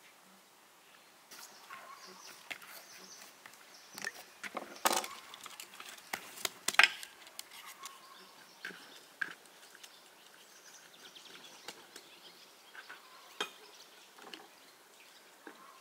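Irregular knocks and clicks, a few sharper and louder ones near the middle.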